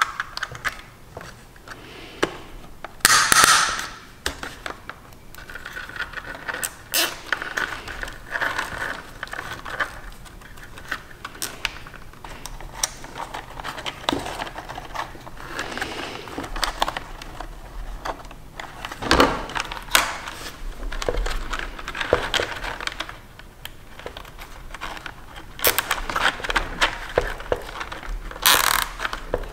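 Handling noise from wiring work inside a plastic food dehydrator base: irregular clicks, taps and rustling as wires and a braided thermocouple lead are moved against the plastic housing. Louder rustling bursts come about three seconds in and again near the end.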